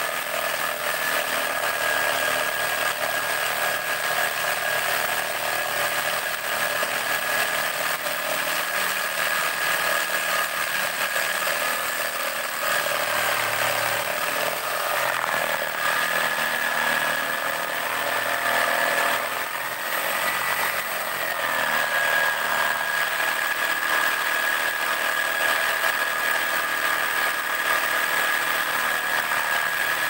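Electric jigsaw running continuously while cutting through a thick wooden plank, a steady high motor whine with the blade's rasp; the pitch wavers briefly a couple of times as the load on the blade changes.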